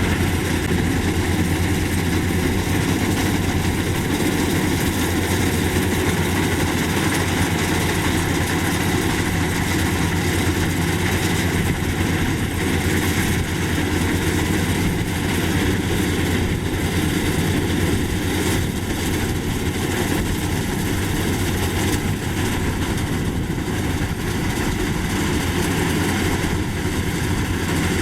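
Maxxi Bimo 102 rice combine harvester running steadily, its engine hum under a constant mechanical clatter and whirr.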